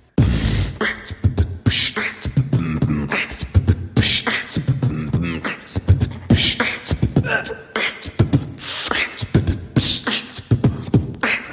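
Vocal beatboxing: a fast rhythm of mouth-made drum hits and clicks mixed with short pitched, bending vocal sounds, all made with the voice alone. It starts abruptly just after the start.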